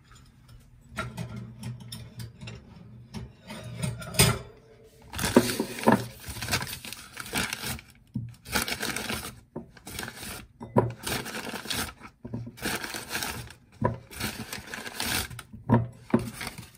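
Kraft paper bag rustling and crinkling as small potatoes are pulled out by hand, with a few light knocks of potatoes set into a ceramic bowl.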